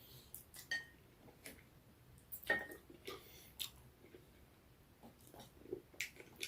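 Close-miked chewing and wet mouth smacks from eating noodles and chicken, heard as irregular soft clicks, the loudest about two and a half seconds in.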